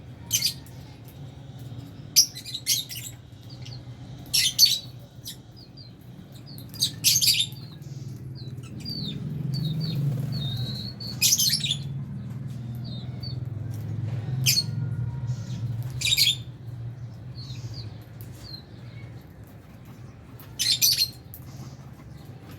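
A flock of lovebirds calling: about ten loud, shrill screeches spaced a second or more apart, with softer chirps in between. A low hum runs underneath and grows louder in the middle.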